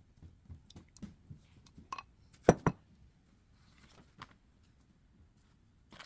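Kitchen utensils clinking and knocking against dishes: scattered small taps, a short ringing clink about two seconds in, then two sharp knocks just after.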